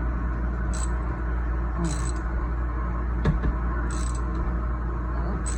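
Ratchet wrench clicking in short strokes about once a second as a bolt on the tiller is tightened, with one sharp metal knock a little past halfway. A steady low hum runs underneath.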